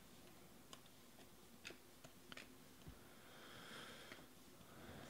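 Faint clicks of glossy chromium trading cards being thumbed one by one off a hand-held stack, a tick every half second to a second, with a soft sliding rustle of a card about three and a half seconds in.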